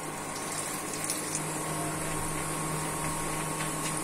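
Hot oil sizzling and bubbling around lentil-onion fritters deep-frying in a pan: a steady crackling hiss, with a steady hum underneath.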